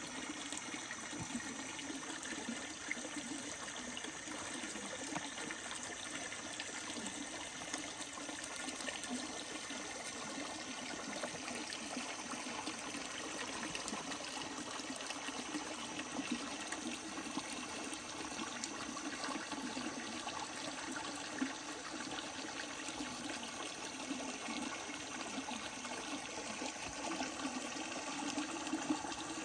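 Steady rushing noise of running water that does not pause.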